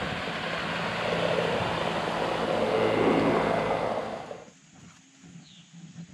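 Engine of a passing motorboat: a broad rushing engine noise over a steady low hum, swelling to a peak about three seconds in, then dropping away at about four and a half seconds.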